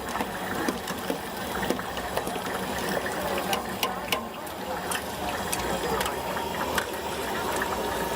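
Tofu deep-frying in a large wok of hot oil: steady sizzling and crackling, with many small sharp pops.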